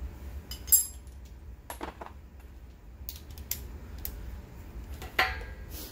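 Scattered light clicks and metallic clinks of tools and compressor parts being handled during reassembly, a handful in all. The loudest is about a second in, and one with a short ringing comes near the end, over a low steady hum.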